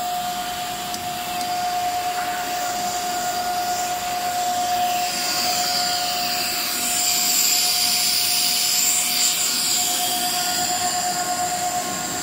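Plastic pipe extrusion line running: a steady machine whine over a rushing hiss, the hiss growing louder around the middle.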